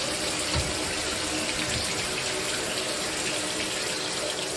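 Mira electric shower running, its water spraying in a steady hiss.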